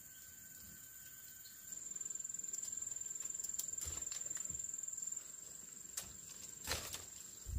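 An insect chirring in one steady high-pitched note with a fast pulse, starting about two seconds in and stopping abruptly a little after five seconds. A few short knocks follow near the end.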